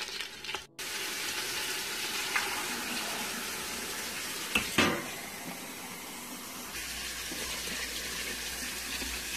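Water pouring in a steady stream into the Instant Pot's stainless steel inner pot over chicken bones and vegetables, filling it for broth. A brief knock sounds about halfway through.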